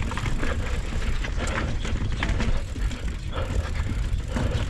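Full-suspension mountain bike descending a rough, rocky downhill trail at speed: tyres rolling over rock, with a steady stream of knocks and rattles from the bike. Wind rumbles on the chin-mounted action camera's microphone, and the rider breathes hard.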